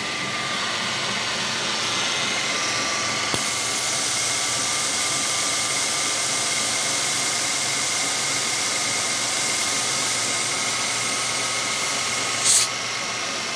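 Car engine idling with a vacuum hose pulled off the intake manifold vacuum line: about three seconds in, air starts hissing loudly into the open hose and keeps on steadily, then stops abruptly near the end with a short click. This is a deliberately introduced vacuum leak, and the engine idles a bit rough.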